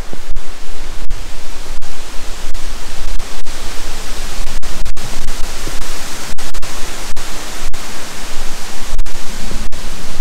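Loud, steady hiss-like rushing noise at every pitch, broken by many very brief dropouts.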